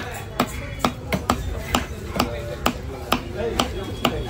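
A large knife chopping a fish fillet into chunks on a wooden chopping block: sharp, even knocks, about two a second, as the blade strikes through into the wood.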